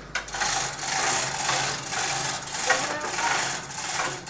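Steady rasping, hissing machine noise with uneven surges and short dips.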